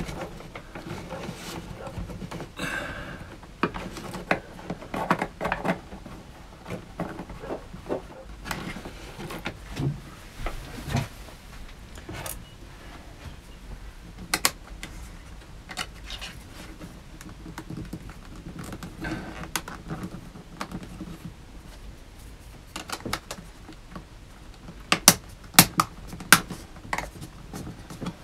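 Hands working a small plastic battery monitor, its mounting plate and cable into a wooden cabinet panel: scattered small clicks, taps and handling rustle, with a run of sharper clicks near the end.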